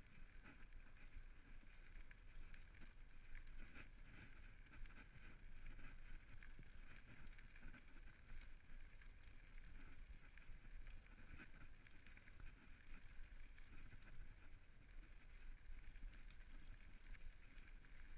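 Faint, steady rolling noise of a bicycle on a gravel path: tyre crunch with small irregular rattles and ticks, over a low rumble of wind on the microphone.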